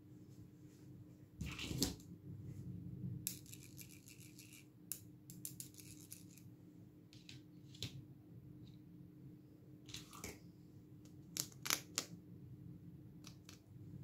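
Small pink plastic toy pieces clicking and tapping as they are picked up, handled and set down on a hard surface, in scattered irregular clicks with a quick rattling run about three seconds in and a few louder clacks near the end.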